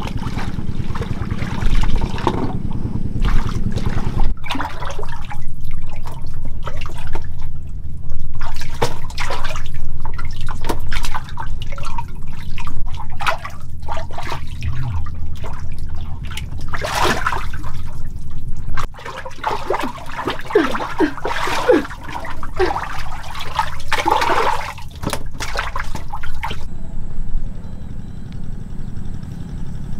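Water splashing and sloshing in irregular bursts, over a steady low motor hum.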